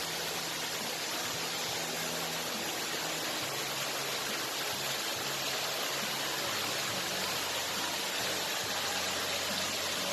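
Water flowing steadily at a natural spring, a constant even rushing hiss.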